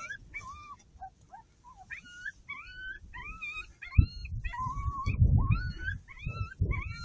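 Coyote yips and whimpers: a rapid series of short, squealing calls, each rising in pitch and then levelling off, several a second. A low thump about four seconds in, followed by low rumbling.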